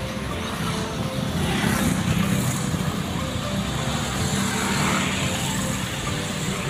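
Steady road traffic noise: passing vehicles' engines and tyres.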